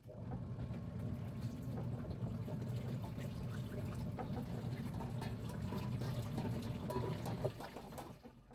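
Water running steadily. It starts suddenly and tails off near the end.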